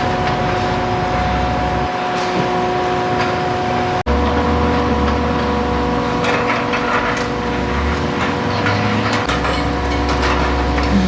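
Steady machine hum carrying several constant tones over a low rumble. It breaks off abruptly about four seconds in and gives way to a similar hum with different tones and a deeper rumble.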